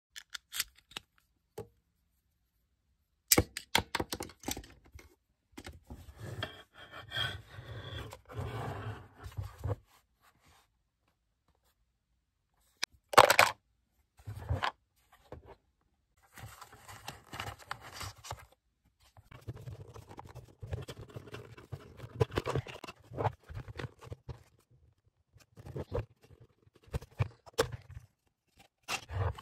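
Hard plastic parts of a Lego Galidor TDN Module being handled and pulled apart: scattered clicks, knocks and scraping of plastic on plastic, with the loudest sharp snap about halfway through.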